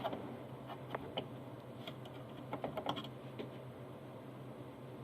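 Irregular small clicks and taps from hands and cleaning tools working on a sewing machine's plastic and metal parts. They bunch in the first three seconds and then stop, over a faint steady low hum.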